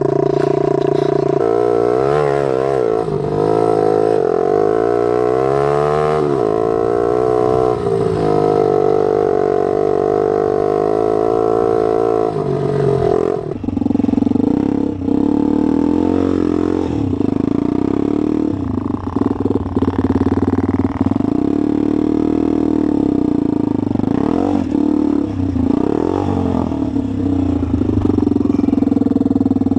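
Off-road motorcycle engine running close by, its revs rising and falling, then settling to a lower, steadier note about halfway through with brief dips.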